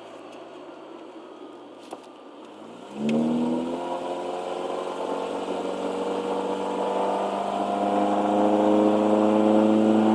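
Car engine running quietly at idle, then about three seconds in the gas pedal is pressed and the revs jump, the pitch and loudness then climbing slowly and steadily. The owner hears an unexplained water-like noise from this car when the gas pedal is pressed.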